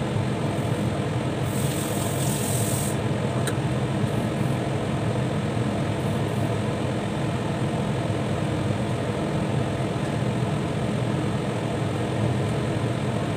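A pot of curry with meat, broccoli, carrots and potatoes boiling under a glass lid: a steady low noise, with a brief higher hiss about a second and a half in.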